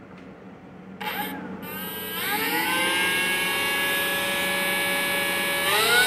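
FMS Kingfisher 1400 mm RC plane's brushless electric motor, run on a 4S battery through a 40 amp ESC, spinning its propeller: a short spin-up about a second in, then a whine that rises and holds steady, climbing again near the end as the throttle is opened further.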